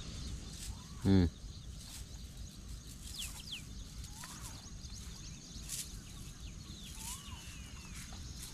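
Open-air riverside ambience with a low steady wind rumble. One short loud call comes about a second in, followed by scattered thin bird chirps and whistles through the rest.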